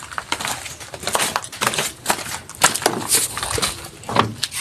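Footsteps crunching on loose gravel and stones, an irregular run of crunches.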